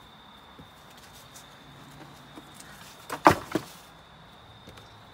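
Three quick sharp knocks about three seconds in, the middle one loudest, from parts being fitted onto an open car tailgate. A thin, steady high tone runs underneath.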